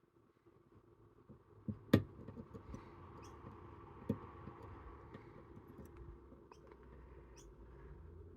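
Camlock Series 63 axial lock being picked with a thin wire: faint scratching and light clicks as the wire works inside the lock, with a sharper click about two seconds in and another near the end.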